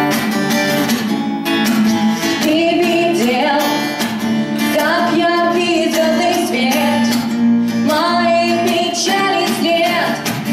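Strummed acoustic guitar, played live, with a woman's singing voice entering over it about two and a half seconds in.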